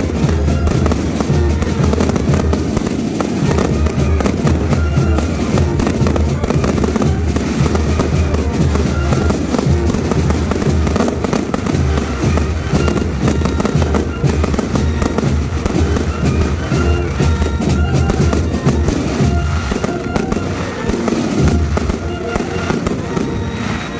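Fireworks display: a dense, continuous run of bangs and crackling bursts over music.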